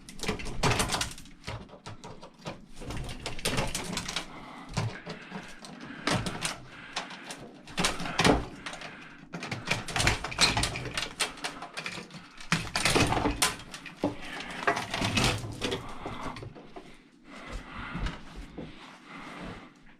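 Pliers pulling wire connections off the inside of an old 12 V battery charger: irregular metal clicks, snaps and scrapes, in clusters with short pauses between.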